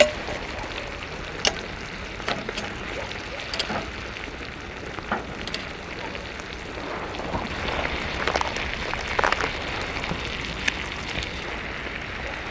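Chicken breast sizzling in a pan while a wine sauce reduces: a steady frying hiss with scattered crackles.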